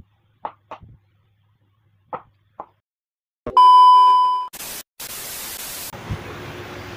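A few light knife taps on a cutting board, then a loud steady beep about a second long, followed by a burst of TV-static hiss: an edited-in video transition effect.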